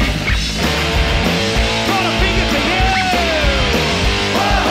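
Loud, fast punk rock from a vinyl record: a band with distorted guitars and drums playing steadily, with notes that slide down in pitch a few times.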